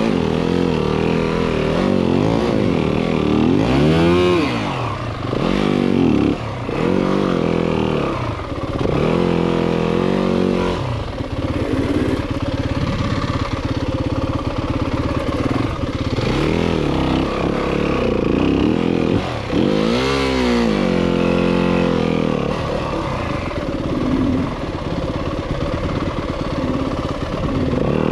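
Yamaha WR-F enduro bike's single-cylinder four-stroke engine revving up and down over rough terrain, with quick throttle blips about four seconds in and again near twenty seconds.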